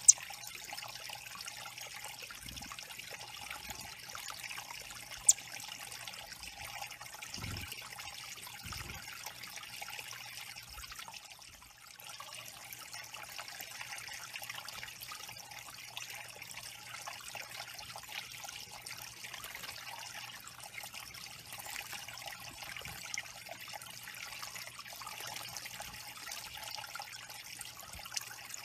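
Small garden waterfall trickling steadily over stacked stones into a shallow pebble pool. Two brief sharp ticks stand out, one right at the start and one about five seconds in.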